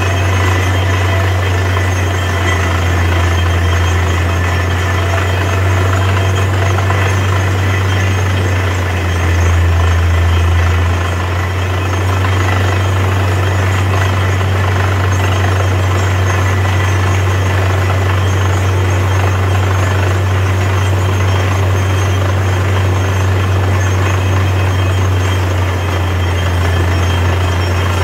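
Borewell drilling rig running steadily: a heavy engine drone with a strong low hum under a wash of mechanical noise, swelling briefly about nine seconds in.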